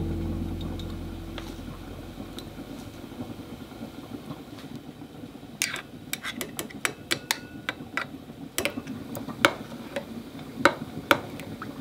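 A metal measuring spoon stirring soy-sauce dressing in a glass mixing bowl, clinking against the glass in a run of light, irregular ticks from about halfway through. Music fades out at the start.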